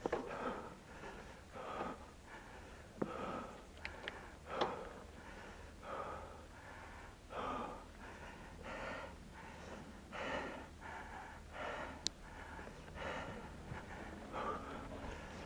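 A mountain biker breathing hard while riding, heavy puffing breaths about once a second, with a few sharp clicks from the bike on the trail.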